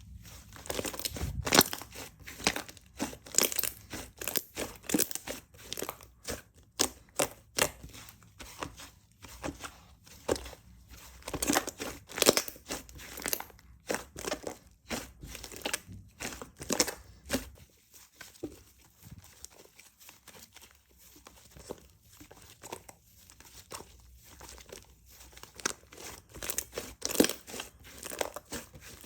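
Slime being squished and stretched by hand: an irregular run of sharp clicks, pops and crackles, thinning out past the middle and picking up again near the end.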